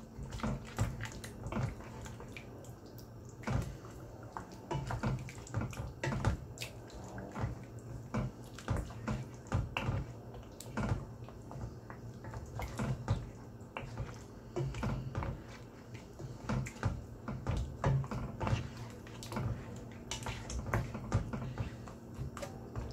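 Wooden spoon stirring chunks of lamb through a thick yogurt-and-spice sauce in a nonstick wok: irregular wet squelches and soft knocks of the spoon against the pan, over a steady low hum.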